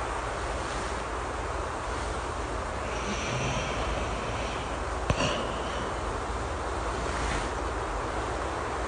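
Steady rain hiss with a person snoring softly, and a single sharp click about five seconds in.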